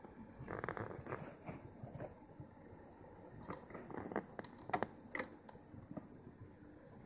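Handling noise: irregular small clicks, rustles and crackles, with a cluster of sharper clicks about four to five seconds in.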